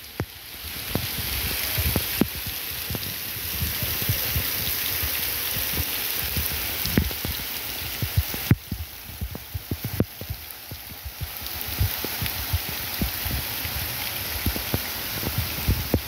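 Water of a waterfall falling in thin streams from a rock overhang: a steady splashing hiss, with many sharp drop hits close by.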